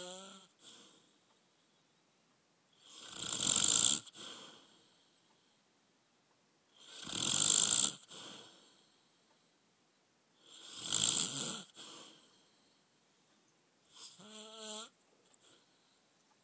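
A man snoring in his sleep: three long, loud snores about four seconds apart, then a shorter, quieter breath with a wavering, whistling tone near the end.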